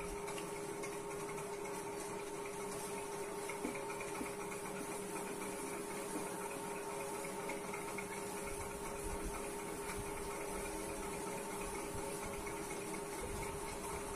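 Steady background hum with a constant tone over even hiss, unchanging throughout.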